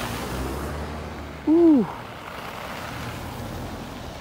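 Cars passing along a slush-covered street, their tyres hissing through wet snow, with wind on the microphone. About a second and a half in, a brief loud pitched call rises slightly then drops sharply in pitch.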